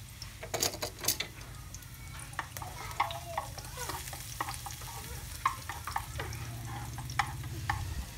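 Food frying in oil in a metal frying pan, with a faint sizzle, as wooden chopsticks stir it, tapping and scraping against the pan now and then, with a cluster of louder clicks about a second in. A low steady hum runs underneath.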